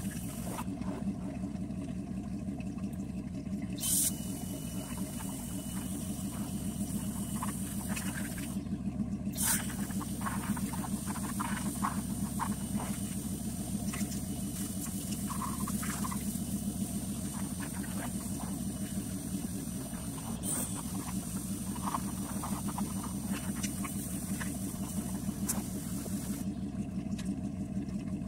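Pressure washer running steadily with a low hum while its water jet hisses against a pickup's bare steel frame. The spray hiss stops briefly three times when the trigger is let go, then bursts back on.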